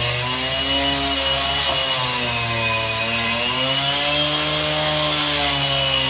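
A small engine running steadily, its pitch drifting slowly up and down.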